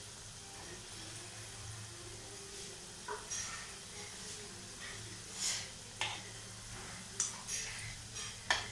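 Gulab jamun balls deep-frying in oil in an aluminium kadhai, with a steady faint sizzle. From about three seconds in there are several short sharp clicks, and near the end a steel spoon turns the balls in the oil.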